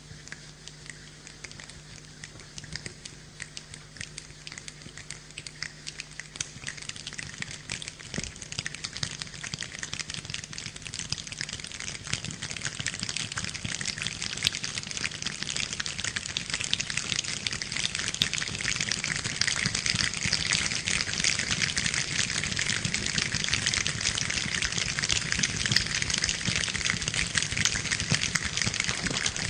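A choir imitating rain with body percussion: a dense patter of small clicks that starts faint and builds gradually over about twenty seconds into a loud, rain-like clatter.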